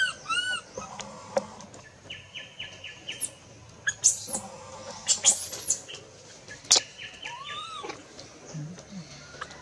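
Infant long-tailed macaque crying in short, arched, high-pitched squeals: a pair right at the start and another about three-quarters of the way through, with higher chirps between them.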